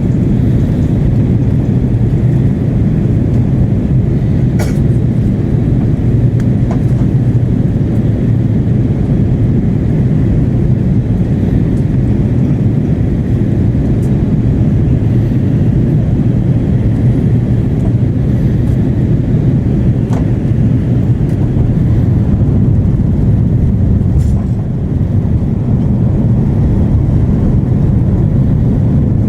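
Steady low rumble of engine and airflow noise inside the cabin of an Airbus A330-300 airliner descending toward landing, with a few faint clicks.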